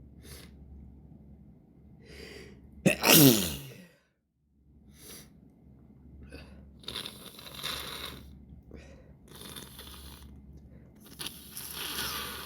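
A person sneezes once, sharply, about three seconds in, the voice falling in pitch at the end of the sneeze. Before and after it come noisy breaths.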